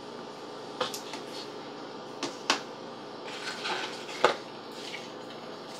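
Small plastic items and cardboard packaging being handled: a few light clicks and taps with a brief soft rustle, the sharpest tap about four seconds in.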